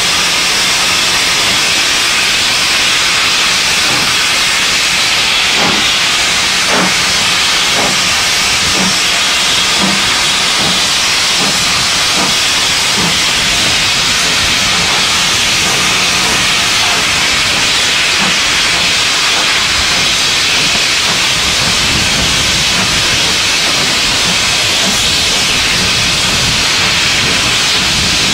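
Steam locomotive hissing steam loudly and steadily, with faint exhaust beats about once a second for a stretch.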